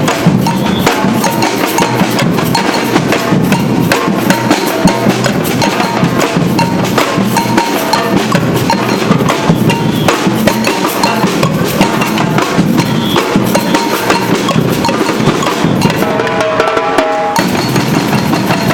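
Batucada drum band playing a dense, steady groove of bass drums and snare drums with sharp clicking strokes, without a break.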